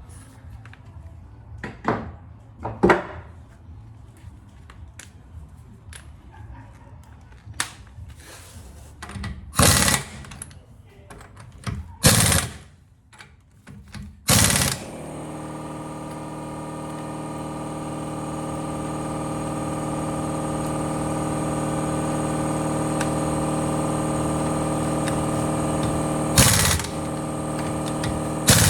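Scattered knocks and several short bursts of a power tool, then a motor starts abruptly about halfway through and runs with a steady hum that slowly grows louder. Two more short bursts cut in near the end.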